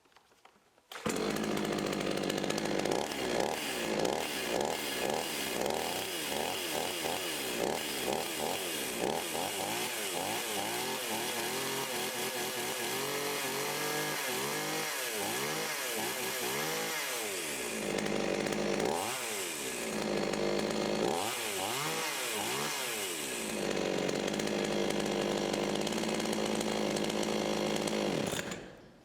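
Budget two-stroke chainsaw engine, freshly rebuilt, running and revved up and down over and over with the throttle, with steadier stretches between. It starts abruptly about a second in and cuts off shortly before the end. It runs relatively good after the rebuild.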